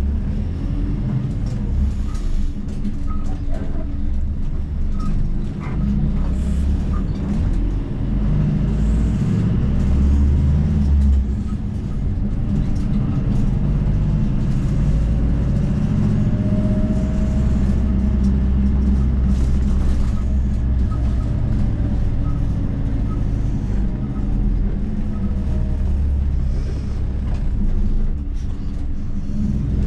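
Bus engine and road noise heard from inside the cabin while it drives, a steady low rumble, with a faint whine rising and falling about halfway through.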